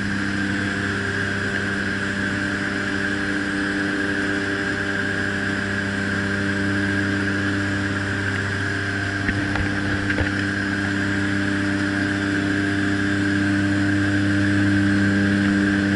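Short Skyvan's twin turboprop engines droning steadily, with wind rushing past the open rear ramp door, heard from inside the cabin. A few light knocks a little past halfway.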